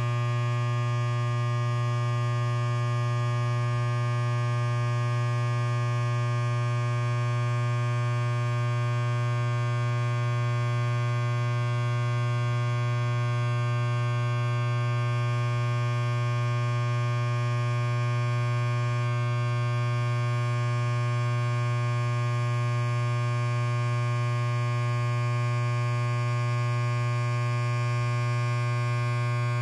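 Electric hair clipper running steadily with no load: an even buzz that holds the same pitch and level throughout.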